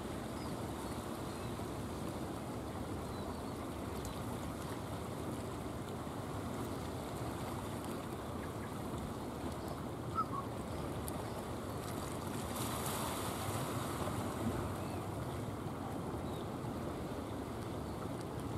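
Steady rush of sea waves and wind, swelling slightly a little past halfway.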